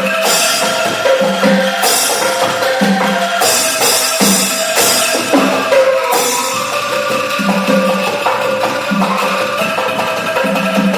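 Music with percussion: a steady beat of low drum hits and wood-block-like knocks under held tones.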